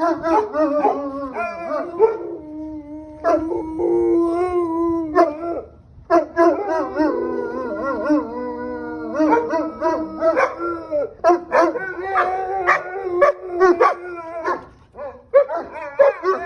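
Several Cane Corsos howling together: overlapping, wavering howls with a few yips. The howling breaks off briefly about six seconds in and again near the end. This is the howling these dogs set up when they hear police sirens.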